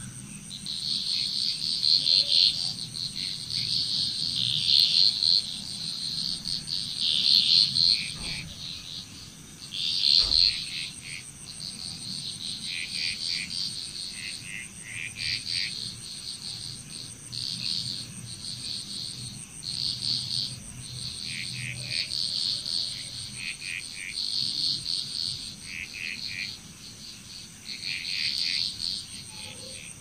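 Frog chorus: several frogs give repeated pulsed, rattling calls that overlap, some higher and some lower, over a steady high-pitched insect drone. There is a single low thump about ten seconds in.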